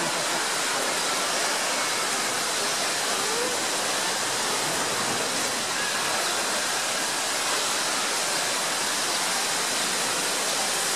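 Steady loud hiss of a high-pressure cleaner's water jet, mixed with African elephants splashing in the pool.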